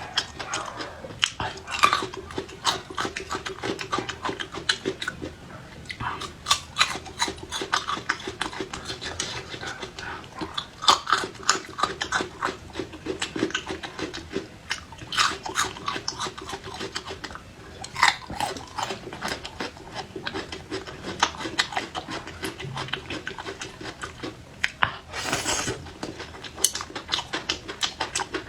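Close-up chewing and crunching of raw bird's eye chilies and garlic: many sharp, irregular crunches and mouth sounds, over a faint steady low hum. About 25 seconds in there is one longer breathy sound.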